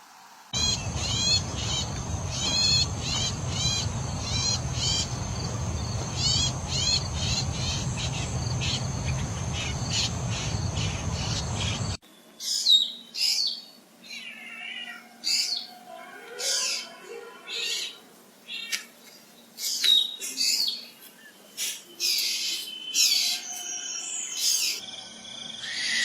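Birds calling: first a quick series of short repeated chirps over a steady rushing background, then, after an abrupt cut about halfway through, a run of varied separate calls and whistles.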